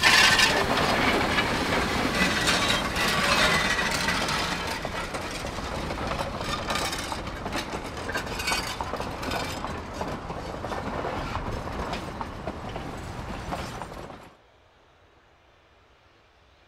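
Narrow-gauge steam train passing close by: K-36 locomotive No. 480, then its wooden coaches rolling past, wheels clattering on the rails. The sound cuts off abruptly about 14 seconds in, leaving near silence.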